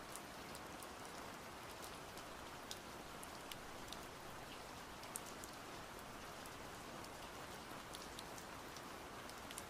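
Faint recorded rain ambience: an even, steady hiss dotted with scattered short ticks of drops, with no music over it.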